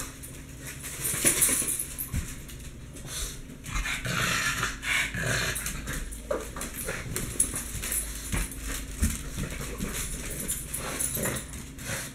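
Fawn pug playing with a crinkly leopard-print plush toy on a tile floor: irregular rustling of the toy mixed with the dog's own noises, louder in patches about a second in and again around four to five seconds.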